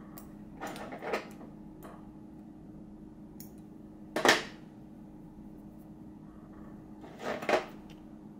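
Three brief spells of knocks and rustles from tools and materials being handled at a fly-tying vise, about a second in, in the middle (the loudest) and near the end, over a faint steady hum.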